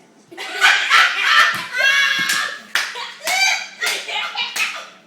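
A boy making loud, irregular vocal noises, high-pitched in places, with a few sharp slaps or claps among them.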